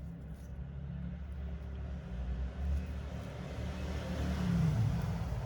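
Low, steady rumble of a motor vehicle running, swelling and rising slightly in pitch about four seconds in.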